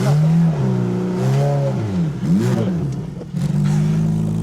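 Side-by-side UTV engine revved up and down about once a second as it works through deep snow, then held steady at high revs from about three and a half seconds in.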